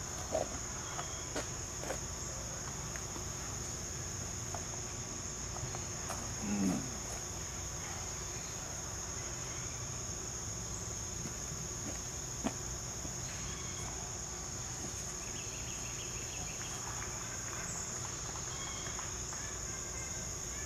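Steady high-pitched insect chorus, crickets chirring in the surrounding woods. A few short clicks come through, and a brief falling sound, the loudest moment, about six and a half seconds in.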